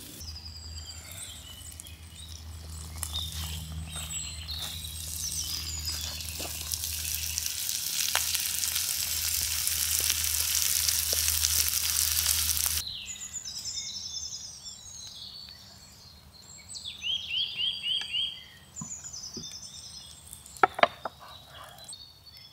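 Cast iron skillet of red beans, sausage, onions and garlic sizzling hard over a campfire, the sizzle growing louder and then cutting off suddenly about two-thirds of the way through. Birds then chirp, with a quick run of about six notes, and a couple of sharp clicks sound near the end.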